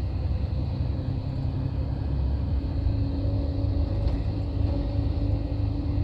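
Intercity coach cruising at highway speed, heard inside the cabin: a steady low rumble of road and engine noise, with an engine hum that climbs slightly in pitch about a second in.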